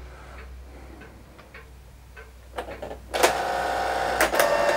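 IBM PC Convertible printer: a few light clicks, then about three seconds in the print mechanism starts up with a steady mechanical whirring. It starts running only after the online/offline switch is flicked, a switch that seems a little iffy.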